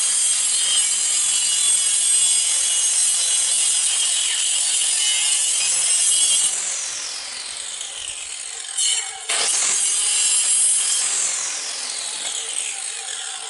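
Compact handheld electric circular saw cutting through a wooden batten: a loud, high-pitched motor whine with the blade biting into the wood. About six and a half seconds in the pitch falls as the motor winds down. The saw starts again about nine seconds in, and its pitch falls again near the end.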